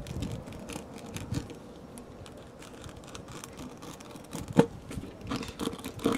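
Steel reamer (rasp) of a tyre plug kit scraping in and out of a puncture hole in a car tyre's rubber tread: quick repeated rasping strokes, louder in the last couple of seconds. The hole is being cleaned out and enlarged ready for the plug.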